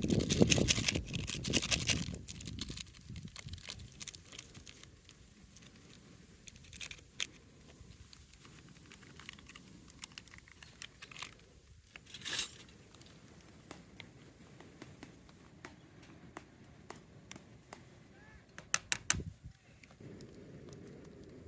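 Rustling and crinkling handling noises, loudest in the first two seconds, with scattered light clicks and a quick run of four or five sharp clicks near the end.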